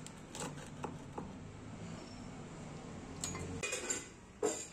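Pizza cutter clicking and knocking against a wooden serving board as a cheese pizza is sliced: three light clicks in the first second and a half, then a few louder short scrapes near the end.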